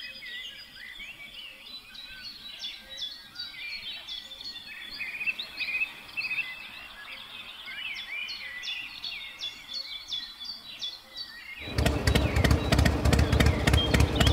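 Small birds chirping in quick short calls over a quiet outdoor background. Near the end a much louder noise, dense with rapid clicks, cuts in suddenly and drowns them out.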